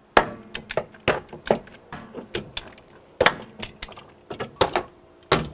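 Ratchet of a torque wrench clicking in short, irregular runs as the 10 mm water pump bolts are snugged down, with small metallic clinks of the socket on the bolts.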